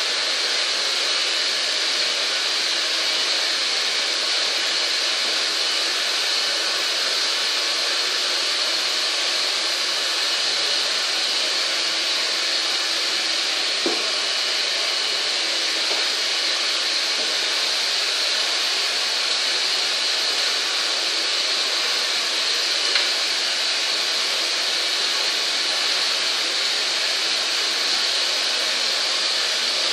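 Steady rushing noise of an electric blower motor running without a break, with a couple of small knocks.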